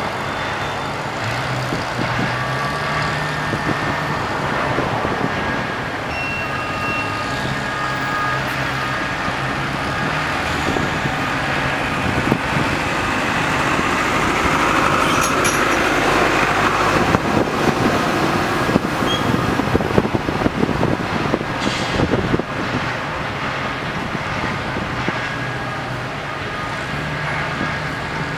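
Rail crane engine running steadily while the crane holds a track panel on its hook. Rattling and clanking grow louder through the middle stretch, with one sharp knock about three-quarters of the way through.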